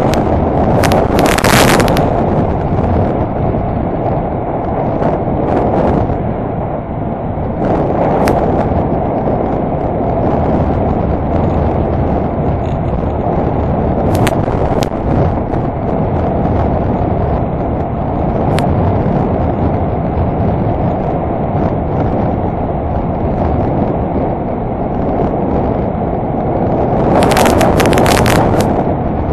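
Onboard sound of a Honda Deauville NT650V motorcycle on the move: its V-twin engine runs steadily under a constant wind rumble on the microphone. Louder gusts buffet the microphone briefly near the start and again near the end.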